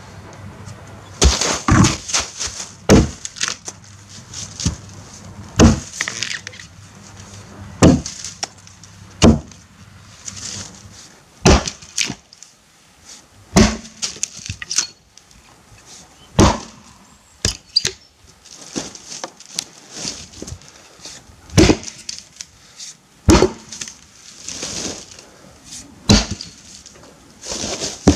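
Helko Werk Tasmanian axe chopping into a log on the ground: about fifteen sharp blows of steel biting into wood, roughly one every two seconds at an uneven pace.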